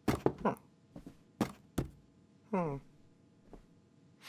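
Cartoon foley of a cat pawing at and climbing onto a small box: a quick run of taps and soft thuds in the first two seconds, then a short mew about two and a half seconds in.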